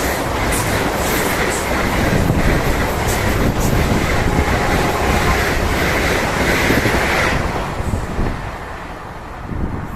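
Express passenger train passing at high speed, a loud rush of wheels on rail and coaches going by, which dies away about seven seconds in as the train passes.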